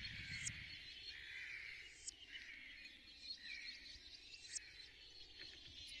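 Faint outdoor ambience, a hiss of birds and insects, run through a slow sweeping phaser effect so that it whooshes up and down every couple of seconds, with a few soft ticks.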